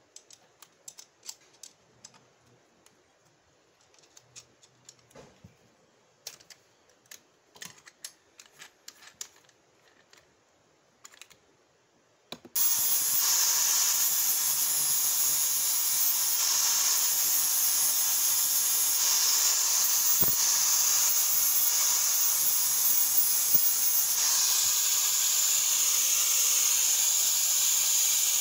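Light scattered clicks and taps of metal being handled at the vise. About twelve seconds in, an angle grinder starts grinding the steel axe head with an abrasive disc: a loud, steady, hissing rasp.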